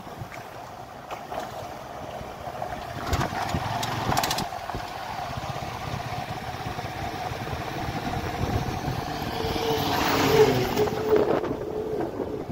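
A vehicle driving on a rough road, its engine and road noise running steadily. A few sharp knocks come about three to four seconds in, and a louder rush swells near the end.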